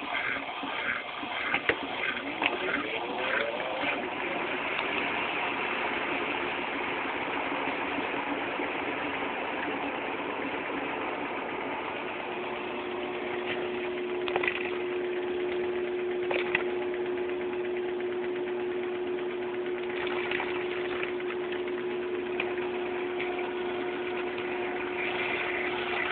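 Class 6 kg washing machine going into its rinse spin: the motor speeds up, rising in pitch over the first few seconds. It then spins on steadily, with a steady whine coming in about halfway through.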